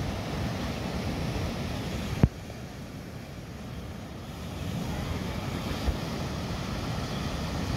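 Wind buffeting the microphone over the steady wash of surf breaking on the beach, with a single sharp knock about two seconds in.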